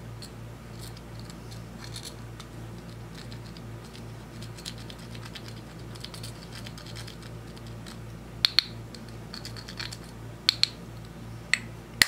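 A thin tool scraping and crumbling pressed powder makeup out of a small compact, a light scratchy rasp. Several sharp clicks in the second half, in two close pairs and then two singles near the end, are the loudest sounds.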